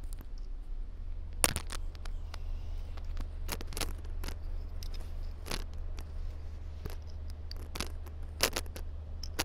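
Scattered sharp clicks and clinks of small metal parts being handled on a workbench, a few seconds apart, over a steady low hum.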